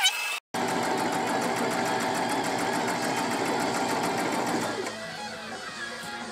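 Electric sewing machine running steadily, its needle stitching a seam through fabric at a fast, even rate. It starts about half a second in and slows and quiets near five seconds in.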